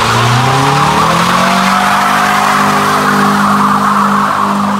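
White Ford Focus sedan doing a burnout: its engine revs up over the first couple of seconds and then holds at high revs while the spinning tyres squeal.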